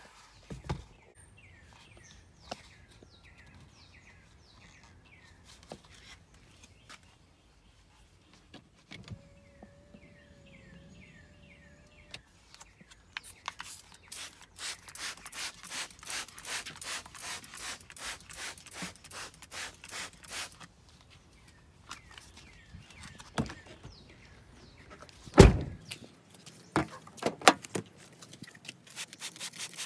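Trigger spray bottle of Febreze fabric spray pumped rapidly, about four hissing sprays a second for several seconds, misting the car seats. A single loud thump, the loudest sound, comes a few seconds later, followed by a few lighter knocks, and the quick spraying starts again at the very end.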